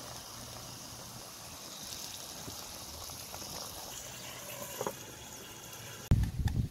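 Liquid poured in a thin stream into a metal pan of fish over a fire, trickling and splashing. About six seconds in a metal lid is set down on the pan with a loud knock.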